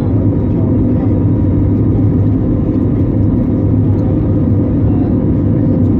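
Steady cabin drone of an Airbus A320neo airliner under way: an even low rush of engine and airflow noise with a constant low hum, heard from inside the passenger cabin.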